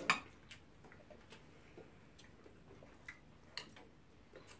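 Spoons and forks clicking against a glass serving platter of rice and stew, a handful of irregular sharp clicks with the loudest right at the start, over faint chewing sounds.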